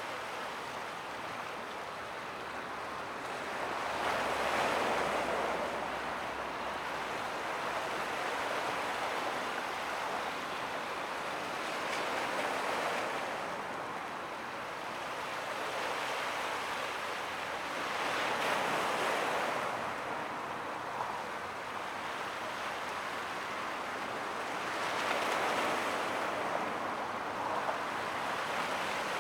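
Waves washing in at the water's edge, swelling about every six or seven seconds, with a steady hiss of water between the surges.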